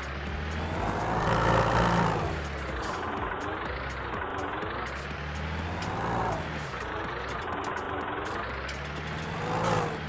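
Vehicle engine running steadily, with revving swells about a second in, around six seconds and again just before the end. The first swell is the loudest.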